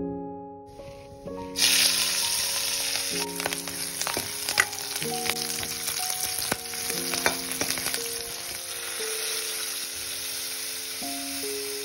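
Green chillies frying in hot oil in a steel kadai, a loud sizzle with sharp crackles and clicks as they are stirred with a steel ladle; the sizzle starts suddenly about a second and a half in. Soft piano music plays throughout.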